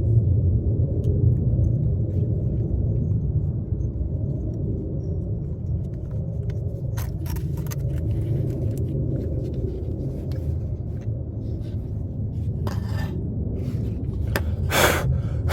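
A steady low rumble under a few short metallic clinks and knocks from parts and tools being handled during exhaust work, the loudest clink near the end.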